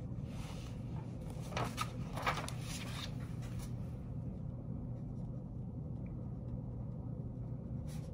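Pen writing and paper sounds on a desk: a few brief scratchy strokes between about one and a half and three seconds in, then fainter writing, over a steady low room hum.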